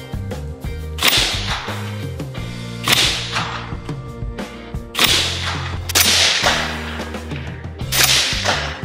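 Suppressed FN SCAR 16 5.56 rifle firing single shots, about five, spaced one to two seconds apart. Each is a sharp crack with a short fading tail, over background music with a steady bass line.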